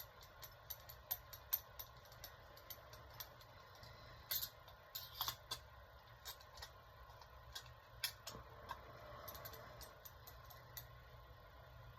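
Light clicks and clinks of hand tools and nuts being worked onto the cylinder head studs of a bump box engine: quick runs of small clicks, a few sharper ones in between, stopping near the end.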